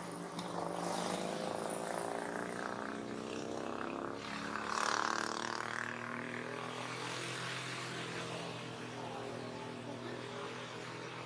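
A steady engine drone made of many even tones that holds its pitch throughout, swelling briefly about five seconds in.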